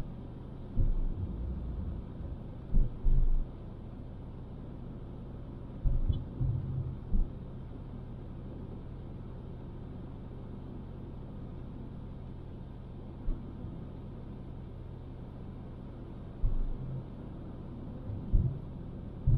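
Car driving on a paved road: a steady low rumble of engine and tyre noise, broken by occasional brief low thumps.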